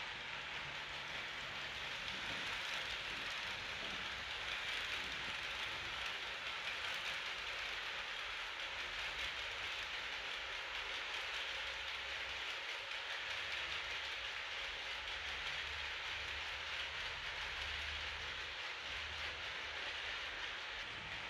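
HO-scale model passenger train rolling along the layout track, a steady hiss of small metal wheels on the rails with a light uneven rumble underneath.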